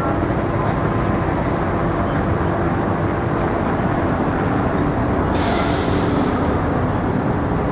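Steady city street traffic with heavy vehicles running, and a sharp hiss of air about five seconds in that lasts about two seconds.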